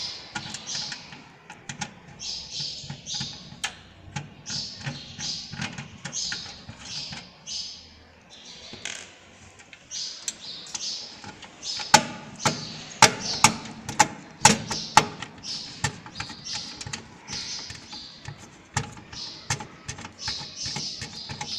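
Screwdriver clicking and tapping on the metal motherboard screws and steel case as the motherboard's screws are undone, with a cluster of sharp loud clicks about halfway through. A repeated high chirping runs underneath, about twice a second.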